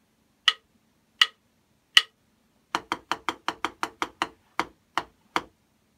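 Drumstick strokes: sharp clicks about three-quarters of a second apart count in, then a rhythm of eight even sixteenth notes (two four-note 'onigiri' groups) followed by four eighth notes, at about 80 beats a minute.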